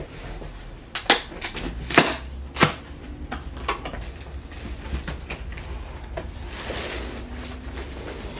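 Cardboard box being opened by hand: a series of sharp snaps and crackles as the glued flaps are pulled apart, the loudest about 1, 2 and 2.5 seconds in. Later comes a stretch of rustling as the contents are lifted out.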